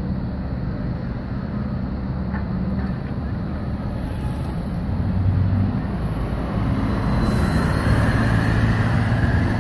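A fire engine's diesel engine running low and steady as it reverses into the firehouse, mixed with city traffic; a car passes close about four seconds in and the traffic noise grows louder after that.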